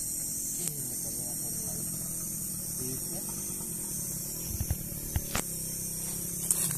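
Steady low hum under a constant high-pitched chirring of night insects, with a few sharp light clicks about two-thirds of the way through and one more near the end.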